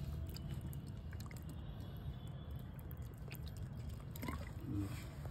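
Faint wet trickling and small squishy ticks as mustard oil is poured in a thin stream over raw chicken pieces and chopped onion in a steel bowl, over a low steady hum.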